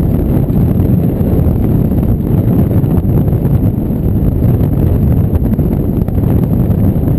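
Steady wind buffeting the microphone of a camera mounted on a hang glider in flight: a loud, low rumble of rushing air.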